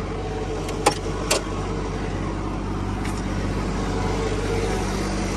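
The Bobcat 322 mini excavator's three-cylinder Kubota diesel running steadily. Two sharp clicks sound about a second in.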